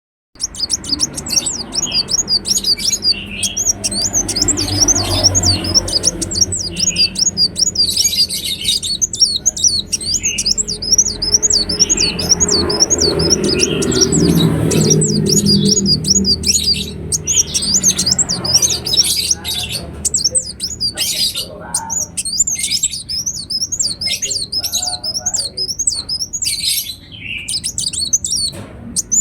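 Ruby-cheeked sunbird singing: a fast, nearly continuous run of high, thin, twittering chirps with a few brief pauses. A low background rumble sits under the song in the middle stretch.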